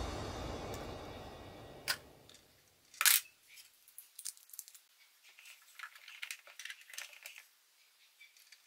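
Small hard plastic toy pieces clicking and tapping as they are handled and set down on a plastic play-kitchen counter: a sharp click about three seconds in, then a run of light clicks and taps. Background music fades out over the first two seconds or so.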